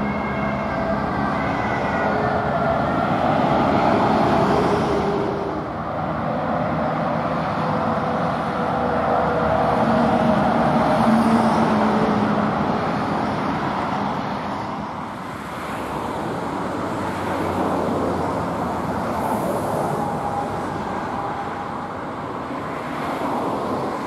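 Steady roar of motorway traffic, swelling and fading as vehicles pass.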